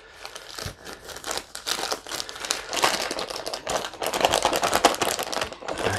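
Zip-top ration drink pouch crinkling and rustling as it is shaken and kneaded to mix the milkshake powder with water and break up the clumps, louder about halfway through.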